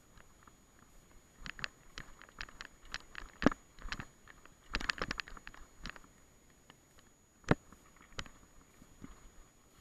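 Irregular sharp clicks, rattles and knocks of a mountain bike and its mounted action camera jolting over rough grassy ground on a descent. They are bunched in the middle, with the loudest single knocks about a third of the way in and about three quarters of the way in.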